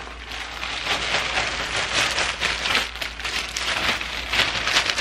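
Thin plastic carrier bag rustling and crinkling as things are pulled out of it, a busy, crackling rustle.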